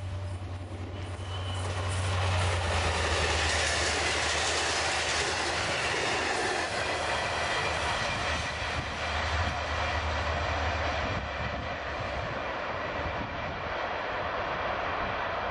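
V/Line A class diesel-electric locomotive passing close at speed at the head of a passenger train: a low engine drone, then the carriage wheels rolling over the rails. The noise swells about two seconds in and eases a little near the end as the train draws away.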